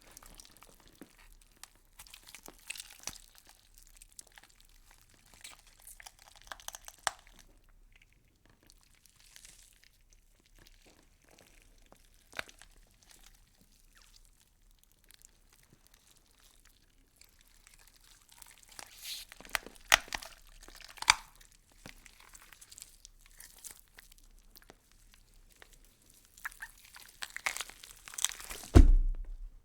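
Wood fire crackling, with irregular sharp pops and snaps, a busier run of louder snaps about twenty seconds in, and one heavier low thump near the end.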